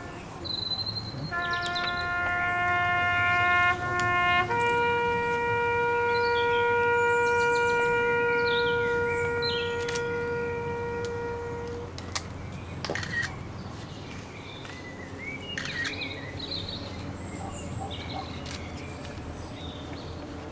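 Solo brass horn sounding a slow bugle call: a couple of long notes, then a lower final note held for about seven seconds before it stops. Birds chirp afterwards.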